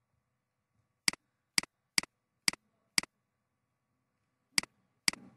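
Computer mouse button clicking sharply: five clicks about half a second apart, then two more after a short pause.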